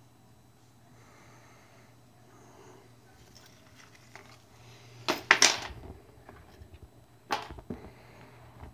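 Clear plastic sleeve crinkling and rustling as it is handled, in a short sharp burst about five seconds in and another about two seconds later.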